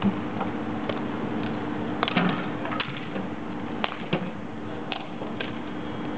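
Bike polo game play: irregular sharp clacks of mallets striking the ball and each other on a concrete court, over steady background noise with a faint hum.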